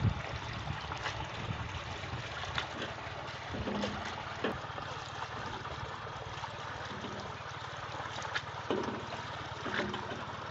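Water sloshing and splashing as a wire-mesh grading basket full of tilapia fingerlings is swirled and dipped in a pond, with repeated short splashes over a steady low hum.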